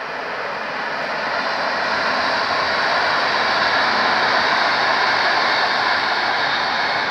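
Passenger train crossing a railway bridge at speed, a steady rushing rolling noise that builds over the first few seconds and then holds.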